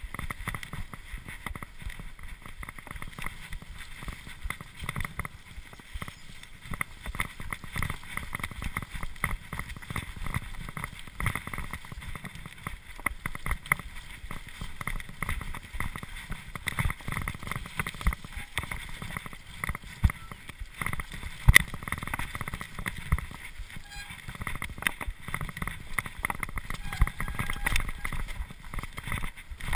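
Cube LTD Pro mountain bike ridden fast down a dirt forest trail: tyres rumbling over dirt and stones, the bike's frame and chain rattling over every bump, and wind buffeting the camera's microphone. One sharp knock a little past the middle, likely a wheel striking a rock or root.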